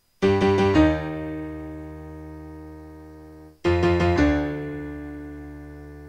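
Background piano music: two phrases, each a quick run of a few notes ending on a held chord that slowly fades.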